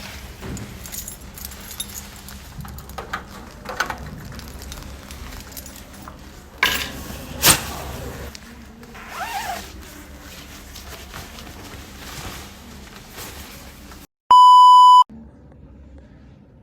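Assorted small handling sounds: clicks, knocks and rustling, with a louder rushing, scraping noise about seven seconds in. About fourteen seconds in comes a loud electronic beep, a steady 1 kHz bleep tone lasting under a second, set in dead silence like an edited-in censor bleep.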